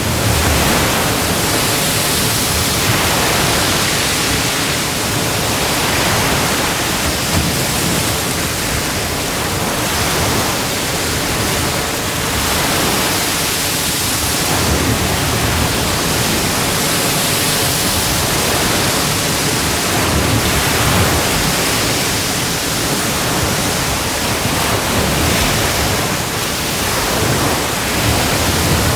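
Atlantic Ocean surf washing onto a beach: a continuous rush of breaking waves that swells every few seconds.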